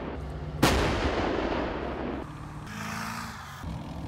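A K9 Thunder 155 mm self-propelled howitzer fires once, about half a second in: a sharp blast whose rumble dies away over the next second and a half. After that comes the steady running of the tracked vehicle's engine.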